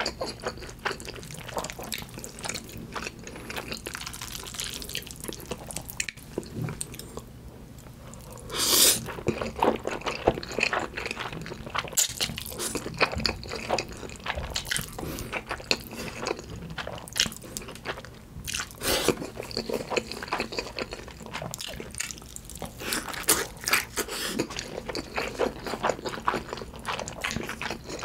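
Close-miked eating sounds: wet chewing and lip smacking of saucy instant black bean noodles and Spam, with a few louder noodle slurps, the loudest about 9 seconds in and again near 19 seconds.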